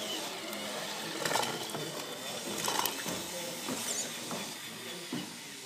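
Remote-controlled scale model tractor with a rotary tiller attachment working soil: a steady small-motor whir with a few sharp clicks.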